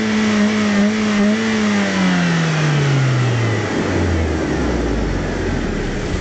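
BMW E36 318is four-cylinder engine through its stock exhaust, held at high revs, then dropping back over about two seconds and settling into a steady idle.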